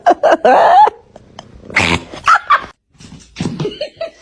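A dog growling and barking: a loud wavering vocal sound, a harsh burst about two seconds in, then a quick run of short yips near the end.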